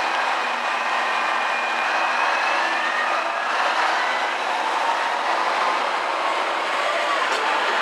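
KiHa E130-series diesel railcar pulling away from the platform, its diesel engine running under power as the train gathers speed and passes close by, with a faint rising whine.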